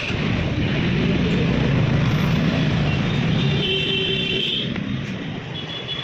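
A motor running steadily with a low hum and a noisy rush, easing off near the end.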